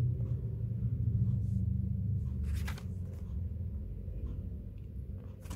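Photocards being handled by hand: faint card rustles and clicks, with one brief louder rustle about two and a half seconds in, over a steady low hum.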